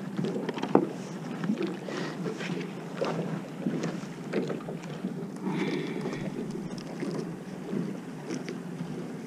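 Water lapping and sloshing against a kayak hull, with wind on the microphone and scattered small knocks.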